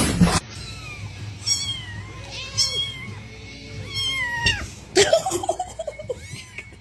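A domestic cat meowing repeatedly, a series of drawn-out calls that rise and fall in pitch.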